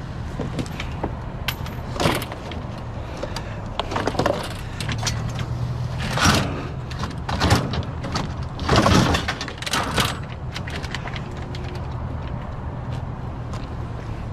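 Scrap garage door openers being shifted and loaded into a vehicle: a series of knocks and clatters, several of them loud, through the first ten seconds, then lighter ticks. A steady low engine hum runs underneath.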